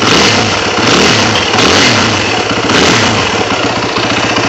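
2003 Yamaha WR450F's single-cylinder four-stroke engine running after being kick-started, blipped up and back down about four times. The battery is too flat for the electric start.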